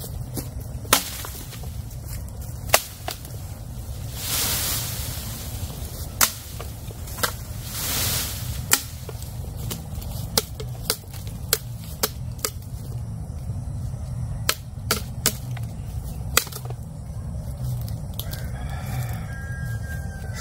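Small machete chopping bamboo stalks: about a dozen sharp knocks, spaced out, with two longer rustles of bamboo leaves and stalks between them. Near the end, a short whistling tone from blowing through a cut bamboo tube.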